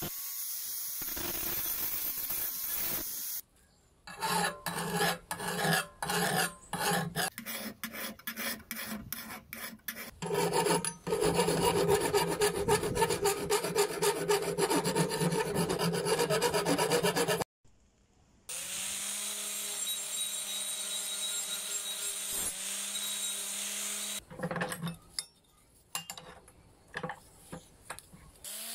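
Hand file scraping across the edge of a rusted metal spatula blade. It starts as separate strokes about two a second, then becomes fast, continuous filing, with more scattered strokes near the end. A few seconds of steady angle-grinder sanding open it, and a power tool's motor runs with a steady hum for several seconds in the middle.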